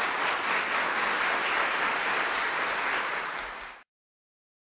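Applause: many hands clapping steadily, fading briefly near the end and then cutting off abruptly.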